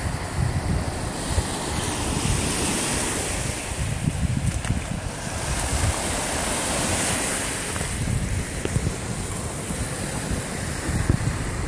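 Lake waves washing in, the hiss swelling and easing twice, over a steady rumble of wind buffeting the phone's microphone.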